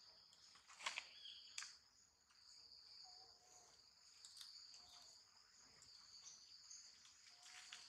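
Steady, faint high-pitched drone of insects in the forest, with a few sharp clicks about a second in and again about half a second later.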